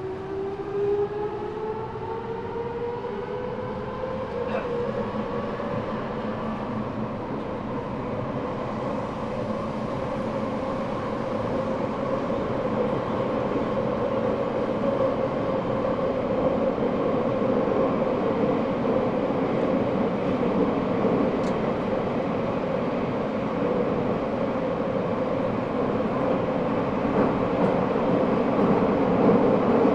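Eidan 6000-series subway car fitted with a high-pitched Mitsubishi three-level VVVF inverter taken from the 7000 series. The inverter whine rises in pitch as the train accelerates and levels off about six seconds in. The car then runs on at speed with steady motor and wheel noise that slowly grows louder, heard from the floor inside the car.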